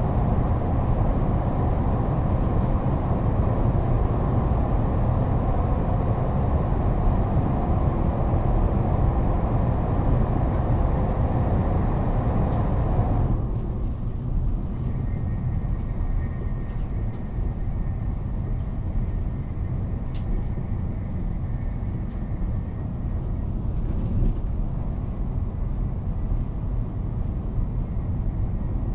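Steady low rumble of a moving train heard from inside a passenger car. About halfway through, the higher-pitched running noise drops away abruptly, leaving the low rumble and a faint steady whine for several seconds.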